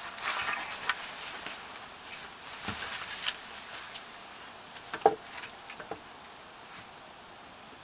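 Rustling and crunching from branches and poles being handled during shelter building, with a few wooden knocks; the sharpest and loudest knock comes about five seconds in.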